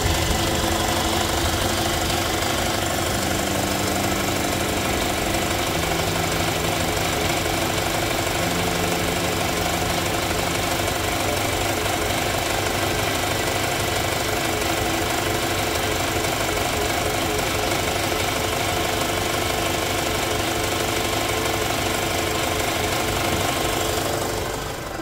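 Volkswagen Golf engine idling with a steady mechanical clatter.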